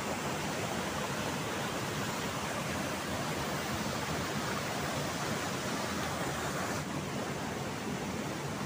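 Fast-flowing river water at a waterfall rushing in a steady hiss, a little duller about seven seconds in.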